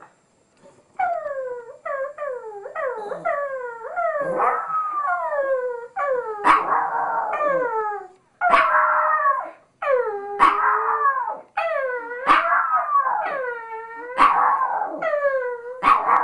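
Chihuahua howling in a long run of howls, each sliding down in pitch, starting about a second in with barely a break between them.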